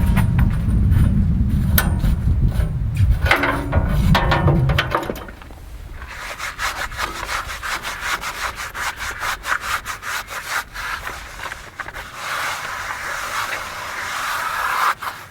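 A loud low rumble with scattered knocks for about five seconds. Then a run of quick, repeated rubbing and scraping strokes as the band blade on a Wood-Mizer LX150 sawmill is changed.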